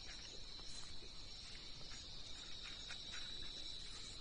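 A steady high insect trill, with a few faint scuffs.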